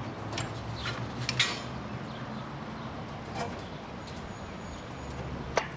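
Steady low hum with a few sharp clicks, the loudest about a second and a half in and just before the end.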